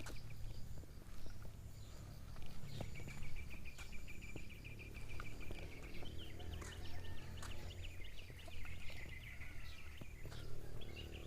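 Birds chirping, with a rapid trill running for several seconds in the middle, over a steady low rumble.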